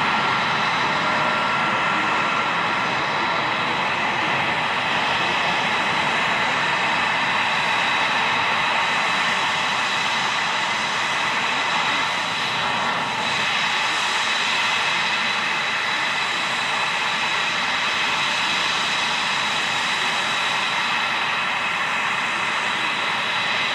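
F-22 Raptor's twin Pratt & Whitney F119 turbofan engines idling: a steady rush of jet noise with a high-pitched whine over it.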